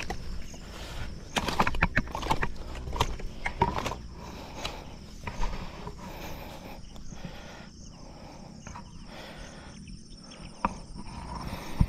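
Rustling and irregular thumps in dense grass as a landed snakehead is dragged up the bank and thrashes, with the angler's footsteps; the knocks cluster in the first few seconds, then it goes quieter.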